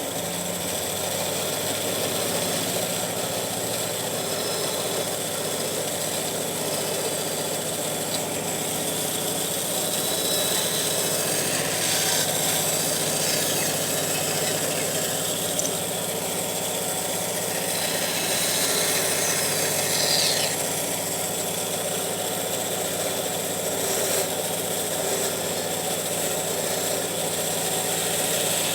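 An electric woodworking machine running with a steady hum, with some faint higher scraping sweeps about a third and two-thirds of the way through, as wood is cut away.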